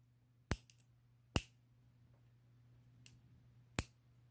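Sharp clicks of a lock pick working the pin tumblers of a vintage Yale five-pin padlock: four clicks at uneven intervals, two louder ones in the first second and a half, then a faint one and a firmer one near the end.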